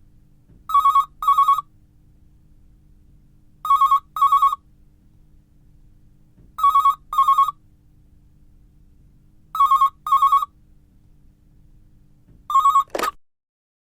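Domestic telephone ringing in the double-ring pattern: pairs of short trilling rings repeating about every three seconds. The last ring is cut off by a sharp click about thirteen seconds in.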